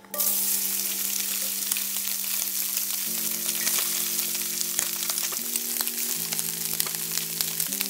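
Octopus tentacles dropped into a very hot oiled cast-iron skillet: a loud sizzle starts suddenly and keeps going with crackling pops as the pieces sear to a crust.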